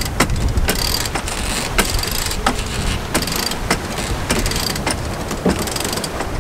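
Wind buffeting the microphone on a sailboat running fast in a strong breeze, a steady low rumble, with irregular sharp clicks and rattles several times a second.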